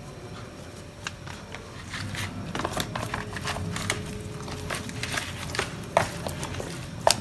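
Hands rubbing turmeric powder into a raw fish in a plastic food tub, with wet handling noise and scattered clicks and knocks of the tub, the sharpest near the end.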